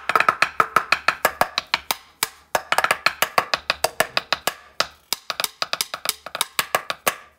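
Tahitian toere, a hollowed slit log drum, played with two sticks in a fast, even rhythm of sharp strikes, several a second.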